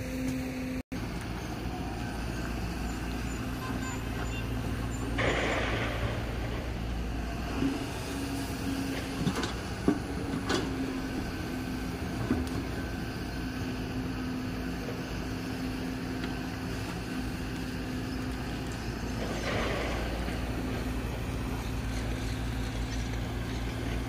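Kobelco hydraulic crawler excavator's diesel engine running steadily under load as it digs. There are a few sharp knocks around the middle, and two short bursts of hiss, one about five seconds in and one about nineteen seconds in.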